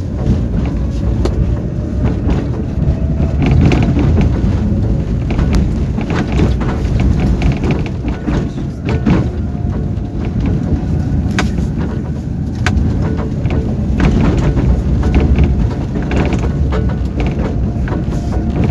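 Tram running between stops, heard from inside the car: a steady low rumble of wheels on rails, with scattered sharp clacks.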